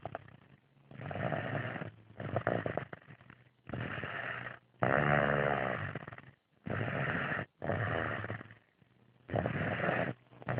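Four-year-old child snoring loudly in deep sleep: a rasping snore on the breaths in and out, about eight in all, the longest and loudest about five seconds in with a buzzing rattle.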